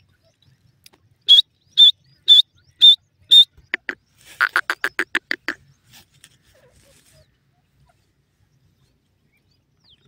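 Francolin (teetar) calling: five loud, sharp high notes about half a second apart, then a quick run of about a dozen lower notes four to five seconds in.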